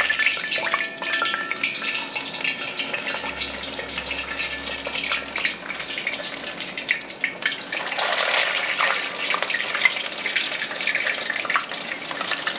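Chicken wings deep-frying in a wok of hot canola oil: a dense crackling sizzle, louder again about eight seconds in.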